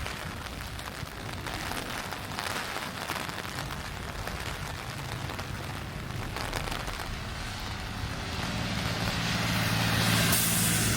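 Steady rain hiss. About eight seconds in, a motor vehicle's engine comes in as a low hum that grows louder, and a short burst of hiss sounds near the end.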